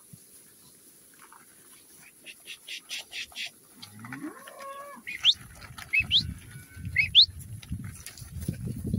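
A young Hereford beast in a moving mob moos once about four seconds in, a single bawl rising in pitch. Three short, high rising chirps and some low thudding and rustling follow.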